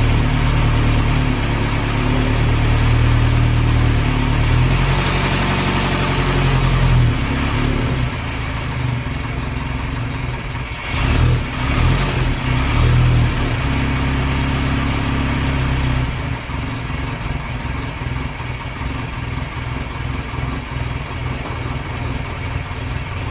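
Morris Eight Series 1's 918 cc side-valve four-cylinder engine running soon after starting, at a fast idle at first; about eight seconds in the revs drop, rise briefly a few times, and then it settles to a slower, quieter idle. It is running on fuel fed from its own tank by the SU electric pump.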